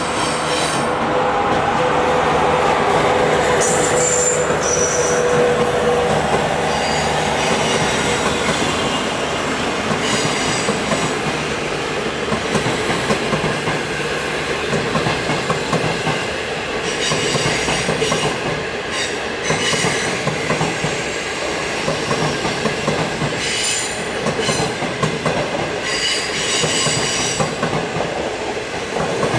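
SS8 electric locomotive and a long rake of passenger coaches rolling past, wheels clacking and rumbling on the rails. Short high wheel squeals come again and again, and a steady tone is heard for about the first six seconds.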